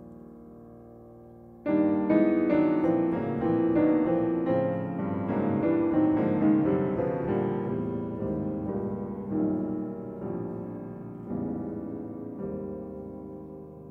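Grand piano playing solo jazz: a held chord fading away, then about 1.7 s in a sudden loud flurry of struck notes and chords that gradually grows softer, with a few single chords struck near the end.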